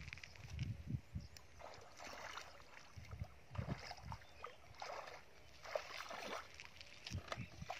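Bare feet wading through a shallow muddy pool, the water sloshing and splashing irregularly with each step, mixed with a few dull low thuds.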